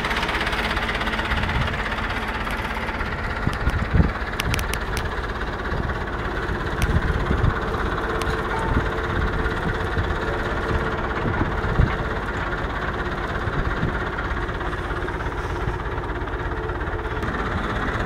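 Tractor engine running steadily while pulling a four-row garlic planter, with a few sharp clicks and knocks standing out about four seconds in and again near the middle.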